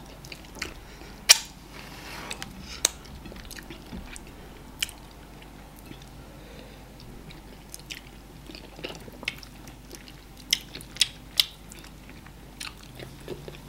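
Close-miked mouth sounds of people eating amala and ogbono soup by hand: chewing with scattered sharp wet clicks and smacks, the loudest about a second in and a quick run of them near the end.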